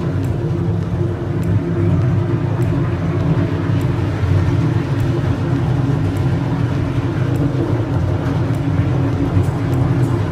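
Motorboat engine running steadily under way: a constant low drone with the rush of wind and water over it.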